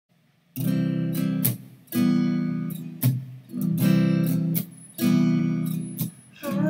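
Acoustic guitar strumming a slow introduction, with a new chord about every second and a half after a brief silence at the start.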